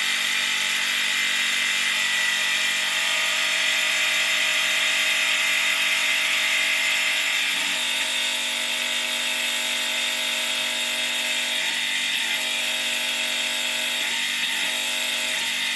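Hytorc electric hydraulic torque-wrench pump running steadily under its pendant's run button, pumping oil pressure up to the gauges. The motor noise drops slightly and changes tone about eight seconds in.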